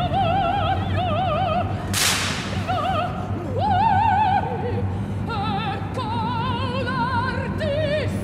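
Operatic soprano singing with a wide vibrato over an orchestra. About two seconds in, a firing squad's stage rifles fire one sharp volley together, with a short ringing tail, and the singing carries on.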